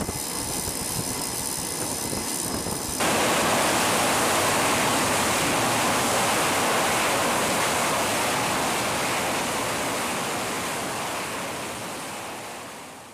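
Carrier flight-deck jet-engine noise. For about three seconds it is a steady whine; then it switches abruptly to a louder, even roar that fades out near the end.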